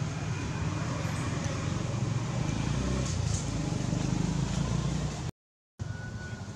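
Steady drone of a running motor-vehicle engine, with low, even hum. The sound drops out completely for about half a second near the end.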